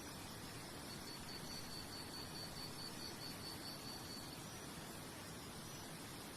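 Steady, even hiss of a nature soundscape, with a high chirp repeated fast and evenly, about six or seven times a second, starting about a second in and stopping after about three seconds.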